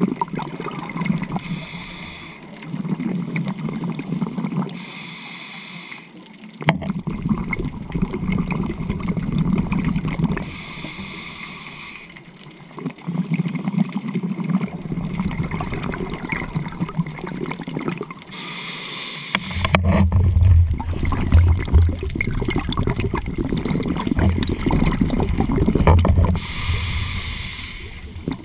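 Scuba regulator breathing, muffled underwater: several short hissing inhalations, each followed by a longer rumble of exhaled bubbles, the loudest stretch in the second half.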